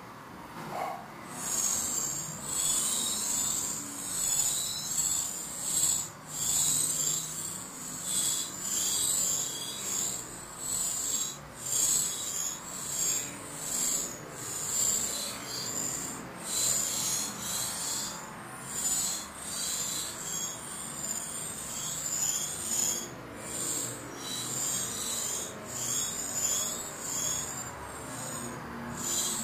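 Great tit nestlings begging: a continuous high-pitched, raspy chorus that starts about a second in and keeps swelling and fading, with a few short breaks.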